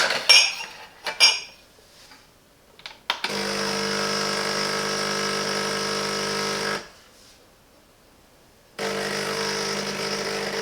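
A few light clicks and knocks, then the Silvercrest SEM 1100 E1 espresso machine's pump hums steadily while brewing for about three and a half seconds. It stops for about two seconds and starts again.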